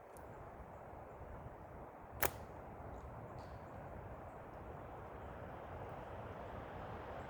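A single sharp crack of a slingshot shot about two seconds in, over a steady hiss of forest noise.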